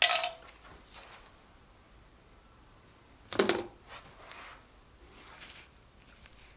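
Metal engine parts and tools clinking and knocking during a teardown: a short clatter at the start and another knock about three and a half seconds in, with faint handling in between.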